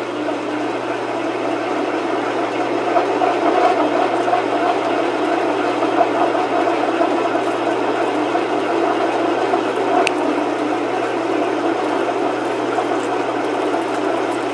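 Metal lathe parting off a spinning rod with a cutoff blade at a slightly faster feed: a steady whirring cutting noise with a steady hum-like tone running through it. One faint tick about ten seconds in.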